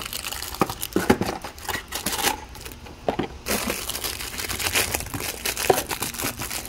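Crinkling of a clear plastic bag and rustling of a cardboard box as a new cartridge oil filter is taken out of its packaging and unwrapped by gloved hands, in irregular crackles.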